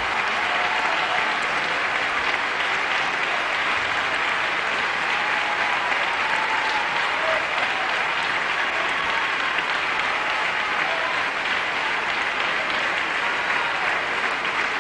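Large concert audience applauding steadily, a dense wash of many hands clapping.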